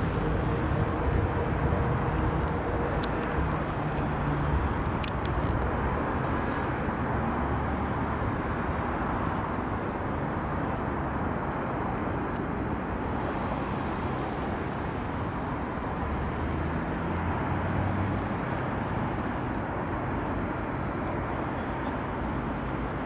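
Steady rushing background noise at an even level, with a fishing boat's engine humming low through the first few seconds before it fades out.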